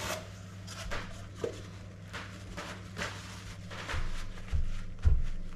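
Paper towel rustling and dabbing as pork belly is patted dry on a metal roasting tray, with a few soft thumps in the second half, the loudest about five seconds in, over a steady low hum.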